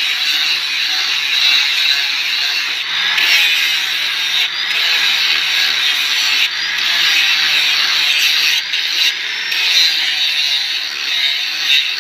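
Wood of an esraj sound box being worked with a tool, a steady rough scraping noise broken by several short pauses.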